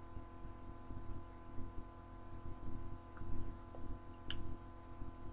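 Steady electrical hum with low background rumble, and a couple of faint ticks near the end.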